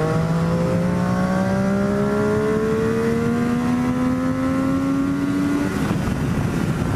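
Triumph Daytona 675's inline-triple engine accelerating hard through one gear, its note climbing steadily as road speed rises. About six seconds in the engine note drops away abruptly, leaving wind and road noise.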